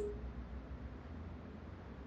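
A short chat-message notification pop right at the start, then a low steady hum.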